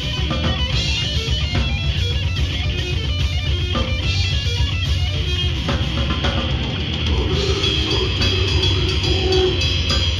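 Heavy metal band playing live: distorted electric guitar, bass guitar and drum kit with fast, dense drumming. About six seconds in the riff changes to longer held notes.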